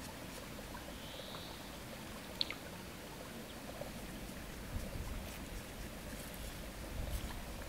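Faint outdoor ambience: a low rumble of wind on the microphone that swells briefly a couple of times, with a short high chirp about a second in and a single small tick around two and a half seconds.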